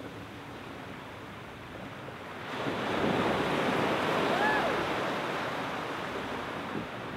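Small waves breaking and washing up a sandy beach. A wave rolls in about two and a half seconds in and slowly fades, with a brief high call that rises and falls near the middle.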